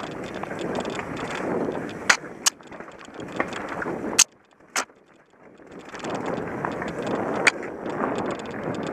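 Mountain bike rolling fast down a dirt trail: steady tyre and wind rumble with several sharp clacks and rattles as it runs over roots, going briefly quiet about halfway through.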